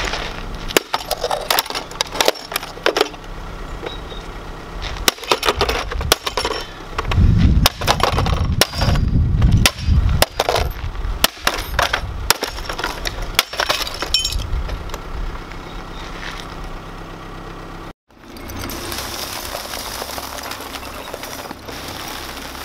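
White plastic hoverboard being smashed on asphalt: repeated sharp cracks, knocks and clinks of breaking plastic and loose parts, heaviest and densest about seven to ten seconds in. After a brief drop to silence near the end, a steady hiss.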